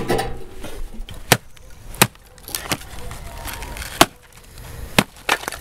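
Hatchet chopping birch wood on a stump chopping block: about six sharp chops, roughly one a second, with two close together near the end.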